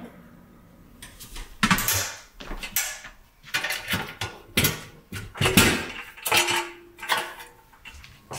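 Cosco folding step stool, steel frame and plastic steps, being handled and folded up: a run of sharp metal-and-plastic clanks and clicks, some leaving a brief metallic ring.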